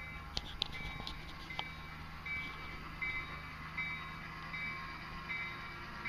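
Bachmann DCC sound decoder in an HO scale diesel locomotive running on the layout: a steady low engine hum with a bell-like ding repeating about every three-quarters of a second. A few sharp clicks come in the first couple of seconds.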